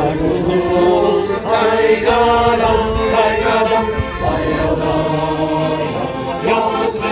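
A group of people singing a song together from song sheets, with accordion accompaniment; voices hold long notes over a steady drone.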